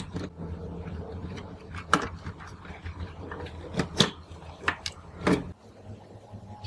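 Clicks and knocks of plastic parts being handled as the circuit boards and cassette mechanism of a Sharp WQ-T281 radio cassette recorder are worked loose and lifted out of its plastic cabinet. About half a dozen sharp clicks, spread out, over a low hum that stops near the end.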